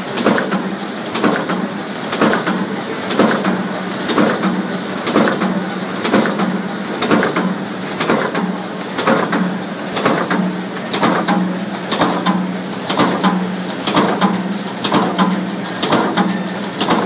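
Booklet finishing line, a saddle stitcher with an in-line Trim & Perf trimming and perforating unit, running in production. It makes a rhythmic mechanical clatter with a beat about once a second as each booklet is processed, over a steady motor hum.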